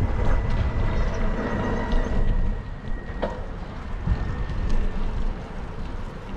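Wind rumbling on the microphone of a camera riding along on a bicycle, mixed with road traffic, and a single sharp click about three seconds in.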